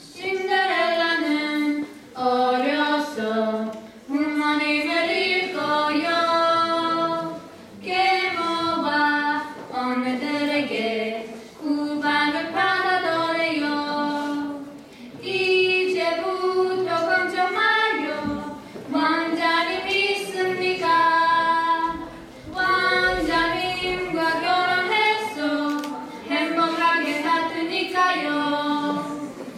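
Female voices singing a slow song unaccompanied, in sung phrases of a few seconds each with short breaks between them.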